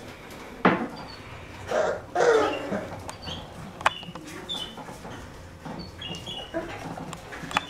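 Four-week-old puppies playing together, giving a few short yips and thin high squeaks; the loudest come about a second in and just after two seconds.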